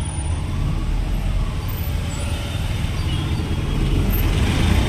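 Steady low engine rumble and road noise heard from a moving auto-rickshaw (tuk-tuk) in busy city traffic, swelling a little near the end.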